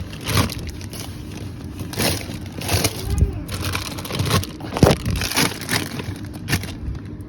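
Irregular knocks and plastic crinkling as wrapped grocery packages are handled and stacked away, the loudest knock about five seconds in.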